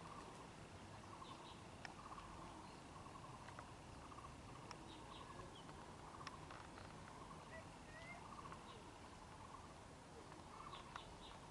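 Faint outdoor ambience with small birds chirping: short repeated trills and brief chirps scattered throughout, over a low steady background rumble.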